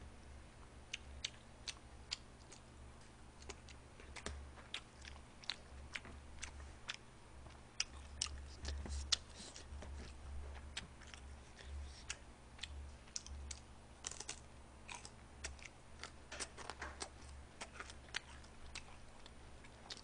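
A person chewing fried battered pork and fried rice close to the microphone: faint, irregular crunches and wet mouth clicks, over a steady low hum.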